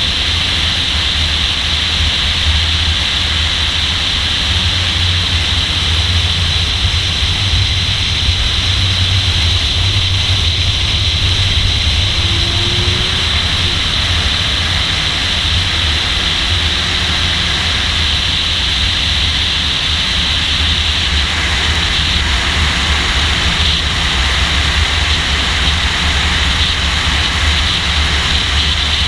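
Sports car driven at speed on a racetrack, heard from a hood-mounted camera: a steady rush of wind and road noise over a low engine drone, with no big changes in revs.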